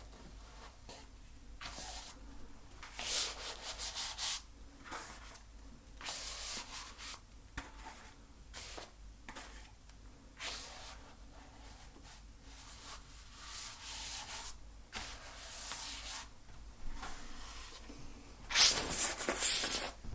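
Paint being worked onto a canvas: a series of short, scratchy rubbing strokes, with a cluster of louder strokes near the end.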